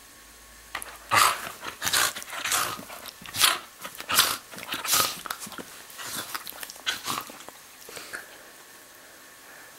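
Bedlington terrier making play-fight noises while mouthing a hand: a quick run of rough, noisy growls and snorts in irregular bursts, starting about a second in and dying away near the end.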